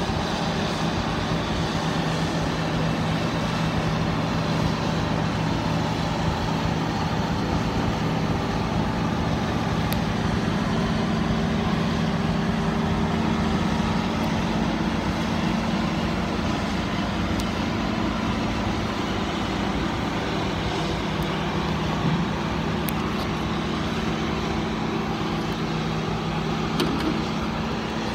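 John Deere combine harvester running steadily while harvesting grain, a constant engine and machinery drone with a low hum.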